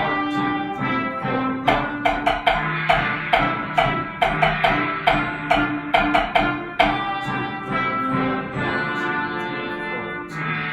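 Concert band music: sustained brass chords under sharp struck percussion hits that come in quick clusters and thin out near the end.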